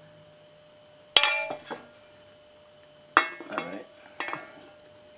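Two sharp metal clinks about two seconds apart, each ringing briefly, the second followed by a couple of lighter knocks, as the aluminium side plate is handled and fitted against the engine block.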